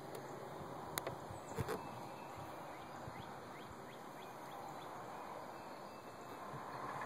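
Faint woodland ambience: a steady low hiss with faint, short distant bird chirps, and two sharp clicks in the first two seconds.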